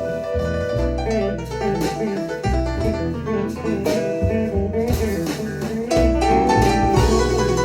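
A blues song's guitar-led instrumental break over bass and drums, played back through Q Acoustics 3010 bookshelf speakers. It gets louder about six seconds in.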